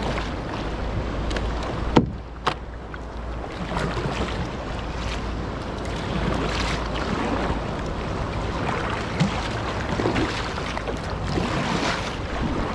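Double-bladed kayak paddle strokes splashing in choppy sea water, with wind buffeting the microphone. A sharp knock about two seconds in.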